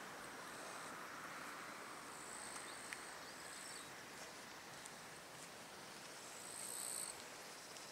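Quiet roadside outdoor ambience: a faint steady hiss of wind and distant road traffic. Over it come high, thin insect buzzes, once about two and a half seconds in and again near the end.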